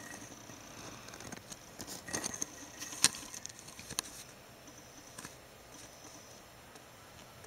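Pet rats moving about on a blanket: soft rustling of fabric with scattered light clicks and scratches, busiest about two to three seconds in, with one sharp click about three seconds in.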